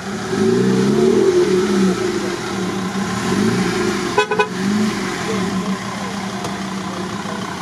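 Off-road vehicle engine revving up and down again and again, as when working through deep mud, with a short horn toot about four seconds in.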